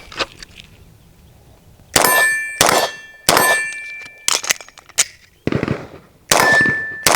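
Shots fired at steel targets, each hit leaving the steel plate ringing. The shots start about two seconds in, with three quick ones, a few lighter ones, a pause, then two more near the end.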